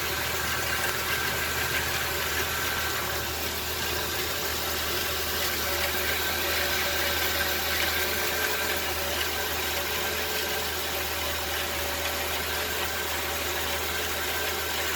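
2003 Dodge Grand Caravan's 3.3-litre V6 idling steadily on a newly fitted serpentine belt, with an even hum and no belt chirp or hiss: the owner takes the old belt to have been the cause of the noise.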